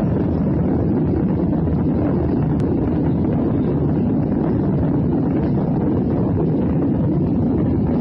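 Steady roar of an airliner cabin in flight: jet engine and airflow noise heard through the fuselage, even and unbroken, deep rather than hissy.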